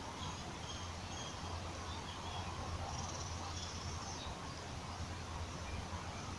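Outdoor ambience: a steady low hum and background hiss with short, faint, scattered chirps of small birds or insects.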